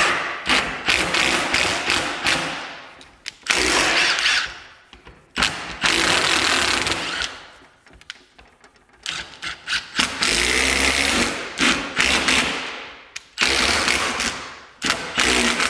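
Cordless impact driver hammering 3/8-by-2-inch lag screws up into the ceiling, pre-driving them. It goes in about six runs of fast rattling impacts, each a second or two long, with short pauses between and a longer pause about halfway through.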